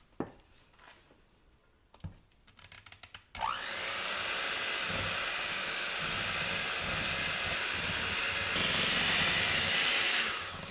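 A couple of clicks, then an electric hand mixer starts with a rising whine and runs steadily, its beaters creaming peanut butter, butter and powdered sugar in a glass bowl. Near the end it steps up to a higher speed, louder and brighter, then is switched off.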